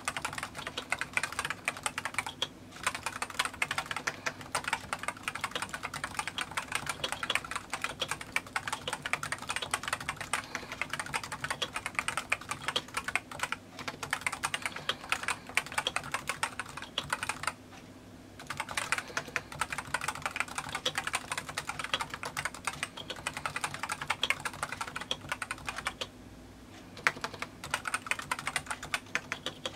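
Continuous fast typing on a Realforce RGB keyboard with Topre electro-capacitive switches: a dense stream of key strokes, broken by a few short pauses.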